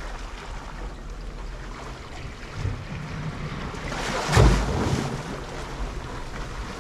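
Steady wash of a calm sea at the shore, with one brief loud bump about four and a half seconds in.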